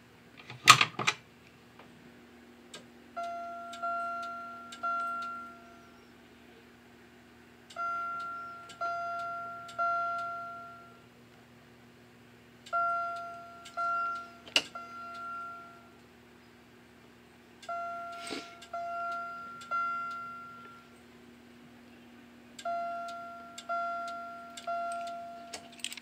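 A Simplex manual pull station is pulled with a sharp clunk just under a second in, and a Wheelock chime strobe then sounds in the code-3 temporal pattern. It gives three chime strikes, a pause, then three more, about every five seconds, five groups in all. Each strike is a two-tone ding that dies away, set quite low, over a steady low hum.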